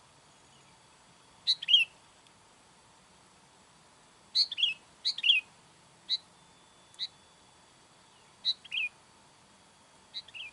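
Sooty-headed bulbul (kutilang) calling: short whistled phrases, each a sharp high note dropping into a brief warble, repeated every one to three seconds. It is the call used to lure wild bulbuls.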